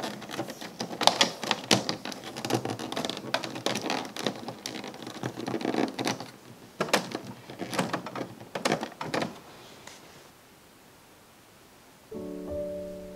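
Appliance power cord being wound around the plastic cord-wrap hooks on the back of a white plastic appliance: rustling of cable with frequent clicks and light knocks of cord against plastic, dying away around nine to ten seconds in. Soft piano music comes in near the end.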